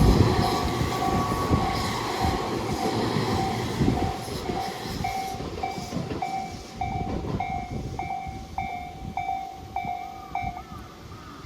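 A Tobu Noda Line train passing over a level crossing, its rumble fading away, while the crossing's electronic warning bell dings steadily, a little under twice a second. The bell stops about a second before the end.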